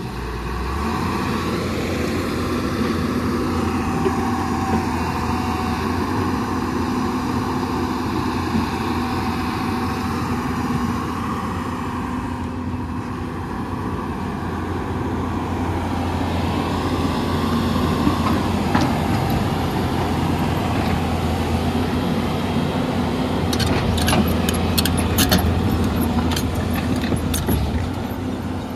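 Hyundai 215 excavator's diesel engine running steadily while the machine is unloaded. The engine note rises a little past the middle, and a cluster of sharp clanks and squeaks comes a few seconds before the end.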